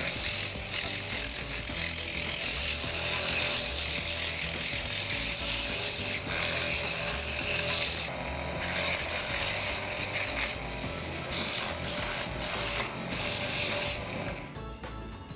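Sandpaper held against a small wooden workpiece spinning on a mini hobby lathe: a steady rasping hiss as the shaping particles are sanded off the surface. It breaks off briefly a few times in the second half and stops near the end.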